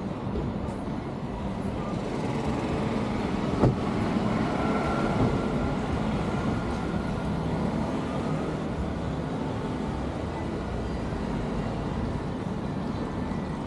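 Street ambience: a steady wash of traffic noise from vehicles on the road, with one sharp knock a few seconds in.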